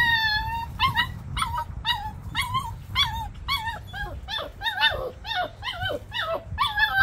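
A stray puppy stuck in a drainage channel crying in distress: a rapid string of short, high-pitched, squeaky whimpers, two or three a second, each bending up and down in pitch. It is crying because it wants to climb out and can't.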